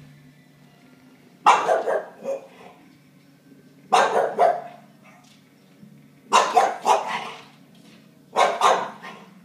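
Small dog barking at a dog on the television: four bouts of two to four quick barks, about two seconds apart.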